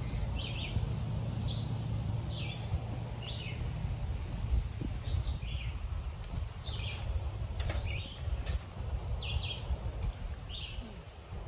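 Small songbirds calling over and over in short notes, about one a second, over a steady low rumble of wind on the microphone. Two sharp clicks come near the middle.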